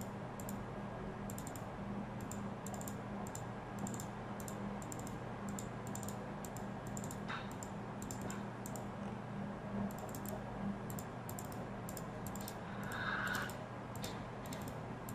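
Typing on a computer keyboard: runs of quick, irregular keystrokes as numbers are keyed in, over a steady low hum.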